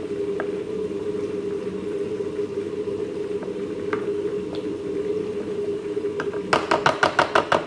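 Hand potato masher working boiled potatoes in a glass baking dish, over a steady background hum. Near the end comes a quick run of about ten sharp knocks, some eight a second, as the masher strikes the glass dish.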